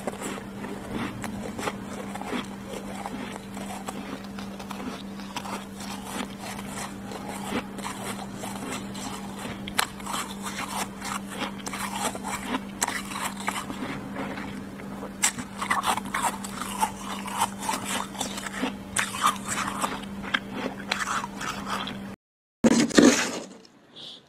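Freezer frost being scraped, with small crackling, scratching ticks over a steady hum. Near the end, after a brief break, comes a louder scrape of a spoon digging into loose frost.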